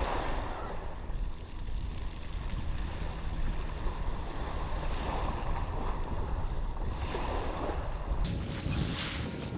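Wind buffeting the microphone with a low rumble, over small waves washing onto a shingle beach; the wash swells a few times and grows louder near the end.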